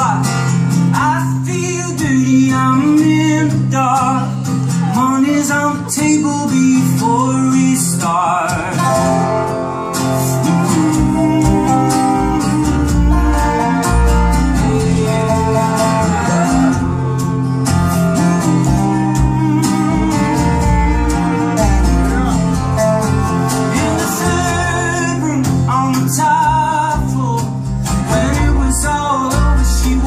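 Live folk band playing a song: singing over acoustic guitar, electric guitar and upright bass. Several voices sing together from about eight seconds in, and deep bass notes grow stronger a few seconds later.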